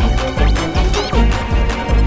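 Upbeat music with a steady bass beat and quick, high rising slides about once a second.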